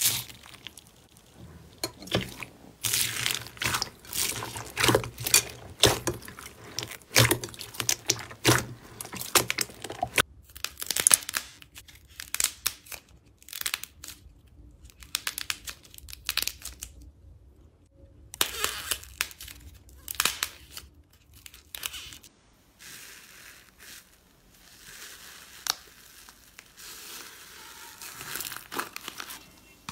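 Slimes squeezed, pressed and pulled apart by hand, several in turn, including a foam-bead slime pressed in a bowl: irregular bursts of crackling, popping and squishing with short quieter gaps, the sound changing character a few times along the way.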